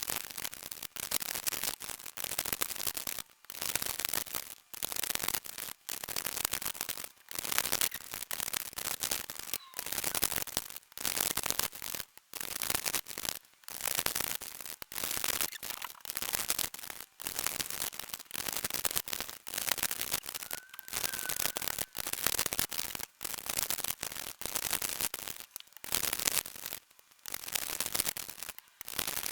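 A 3x3 speedcube being turned fast: dense plastic clicking and rattling of layer turns, in quick runs broken by brief pauses.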